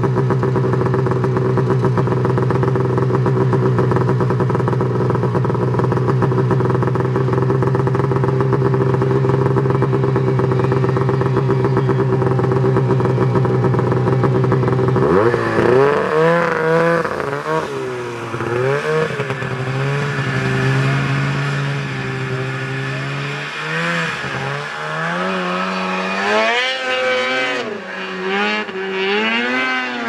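Snowmobile engine held at a steady high rev for about fifteen seconds, then revving up and down again and again as the throttle is worked.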